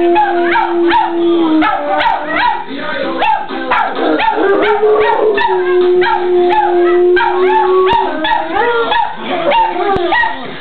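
Two dogs howling together along with a song played in the background, mixing long held howls with short yipping cries that rise and fall.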